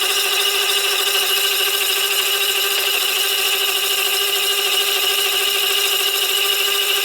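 Tool-post slitting saw spinning at about 1,000 RPM, cutting into a steel shaft turning in reverse on a Monarch 10EE lathe to part off a washer. It gives a steady whine of several held tones over a rushing noise.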